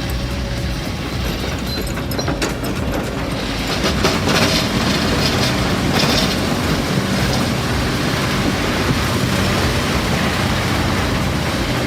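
A heavy machine's engine running steadily under load, with a stretch of cracking and clattering from about four seconds in.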